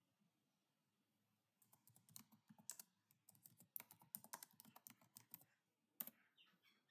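Faint typing on a computer keyboard: a quick run of keystrokes starting about a second and a half in, then a single sharper keystroke, the Enter key, about six seconds in.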